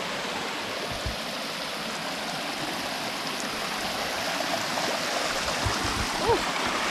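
Shallow river rushing and splashing over rocks in small rapids: a steady rush of running water that grows a little louder as the view moves closer.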